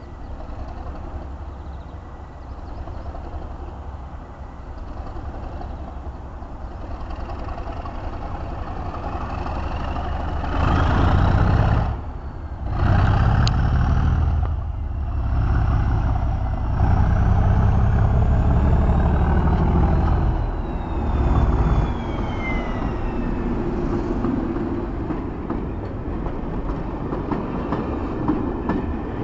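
Class 37 diesel-electric locomotive's English Electric V12 engine growing louder as it approaches, loudest for about ten seconds as it passes, with a high whine that rises and then falls in pitch as it goes by. Near the end the coaches roll past more quietly.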